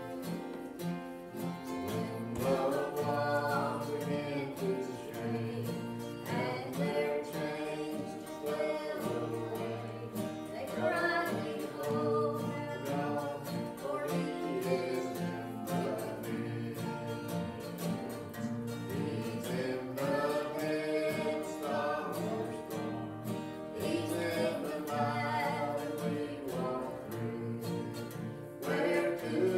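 Gospel song sung in church with instrumental accompaniment.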